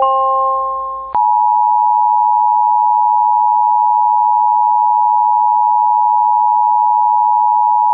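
A short rising chime of pure notes ends about a second in. Then comes the steady two-tone Emergency Alert System attention signal, a held dual tone with a slight beating warble, which announces an emergency alert broadcast.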